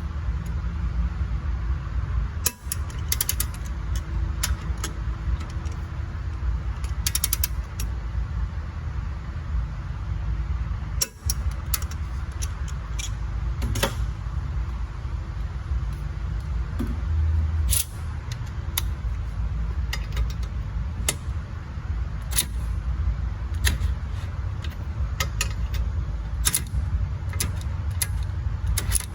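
Scattered sharp clicks and knocks of hand socket tools working caliper bolts: a click-type torque wrench ratcheting and clicking, with metal tool handling, over a steady low rumble.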